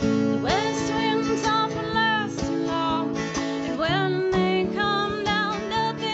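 Background music led by acoustic guitar, with a melody line that slides up into its notes.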